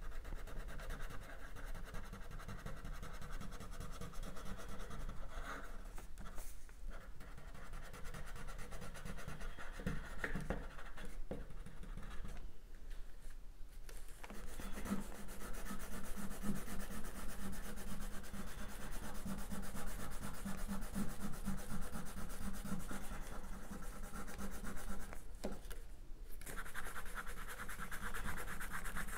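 A pink colouring stick scratching and rubbing back and forth across paper as an area is filled in with colour, stopping briefly a few times.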